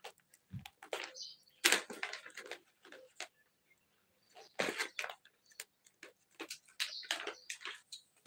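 Irregular household clatter: scattered clicks, knocks and short scraping noises at uneven intervals, the loudest a little under two seconds in and again just before five seconds.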